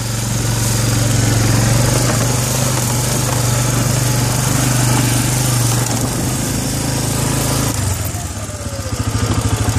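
Arctic Cat 400 4x4 ATV's single-cylinder four-stroke engine running as the quad is driven, with a steady engine note. About eight seconds in the note drops and turns to a slower, uneven pulsing as the revs fall.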